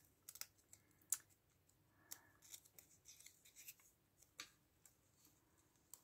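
Faint crisp rustles and light clicks of card and paper being handled as small folded flaps and tags of a tiny handmade book are opened and pressed back, with the sharpest clicks about a second in and a little after four seconds in.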